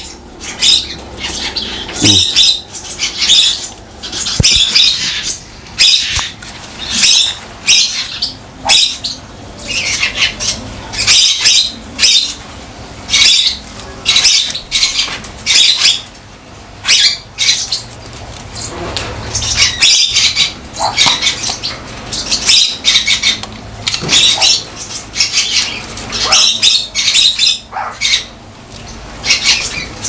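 Crow moving about in a wire cage, making repeated short rustling, scratchy noises about once a second, with no calls.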